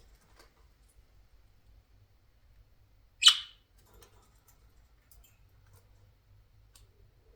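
A female budgerigar gives one short, sharp high chirp about three seconds in, among faint scattered clicks and scratches.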